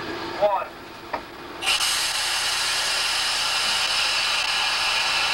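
Moving diesel freight train heard from the locomotive: a short squeak and a knock, then a steady loud hiss that starts abruptly a little under two seconds in.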